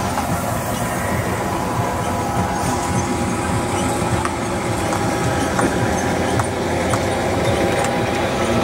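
Steam traction engine running as it drives slowly, a steady mechanical clatter with a few faint clicks.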